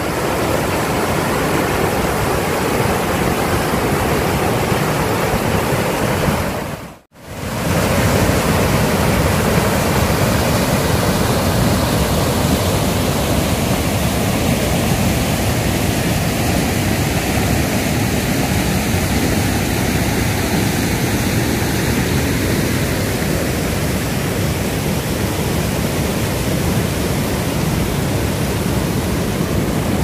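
Waterfall's rushing water: a steady, loud, even rush of noise. It cuts out for a moment about seven seconds in, then carries on as before.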